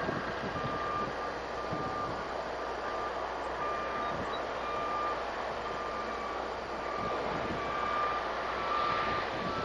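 Reversing alarm of a construction machine beeping, a high steady tone repeating about once a second, over steady background noise.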